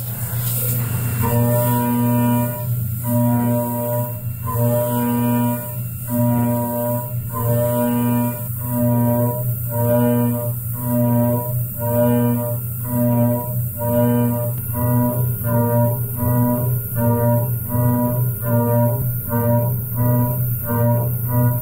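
Background music with bowed low strings: a steady bass drone under a repeating pulse of notes that starts about one a second and quickens towards the end.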